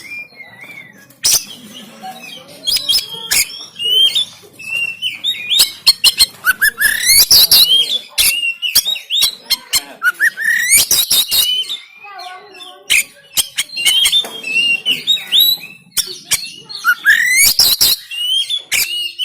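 Oriental magpie-robin (kacer) singing a fast, varied song of chirps and rising whistled slurs, broken by harsh rasping bursts: the rough 'shot' notes kacer keepers prize.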